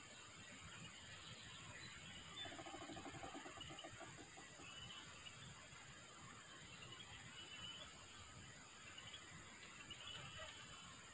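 Faint tropical riverside ambience: a steady high insect drone with a fast pulsing in it, a few short bird chirps, and a low buzzing call lasting about a second and a half, starting two and a half seconds in.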